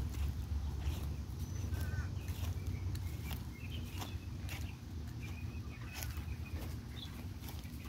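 Scattered crunching steps on dry leaves and pine straw, with faint short bird chirps and a steady low rumble on the microphone.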